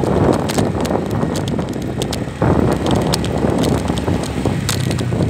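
Motorcycle engine running while riding, with wind buffeting the microphone; the wind noise jumps louder about two and a half seconds in.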